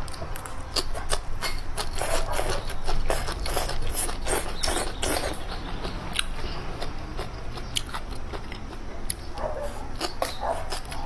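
A person biting and chewing crunchy food at close range, with a rapid run of sharp crunches that thins out in the second half.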